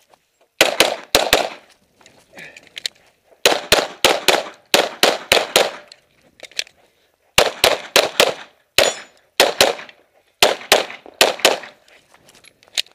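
9mm Glock pistol fired in rapid strings of shots, with short pauses of a second or two between strings.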